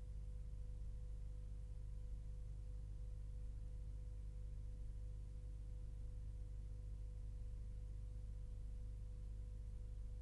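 Steady low electrical hum with a thin steady tone above it and faint hiss: the noise floor of the recording, with no other sound.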